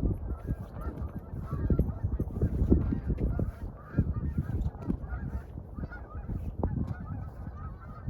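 A flock of geese honking over and over, many overlapping calls, over a steady low rumble.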